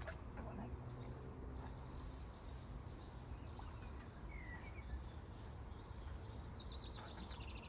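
Small birds singing outdoors, with short repeated trills and chirps throughout, over a steady low rumble.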